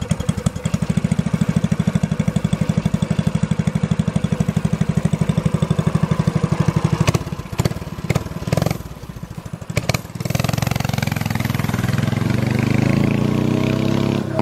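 Coleman 200 mini bike's small single-cylinder engine running through its new stainless-steel muffler: a fast, even putter at idle, then uneven for a few seconds before it pulls away under throttle about ten seconds in, the note climbing as it goes. It sounds so nice.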